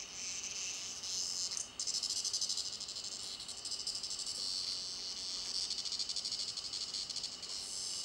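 A cicada, caught and pawed by a cat, gives its distress buzz: a high, rapidly pulsing rasp that breaks off briefly just before two seconds in, then resumes.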